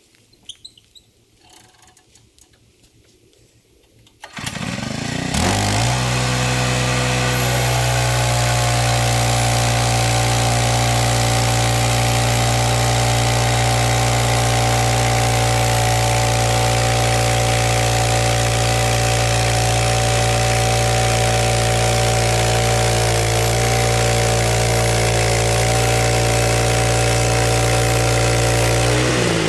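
Portable band sawmill's engine starting about four seconds in, climbing in pitch over the next few seconds, then running steadily at high speed, driving the bandsaw blade.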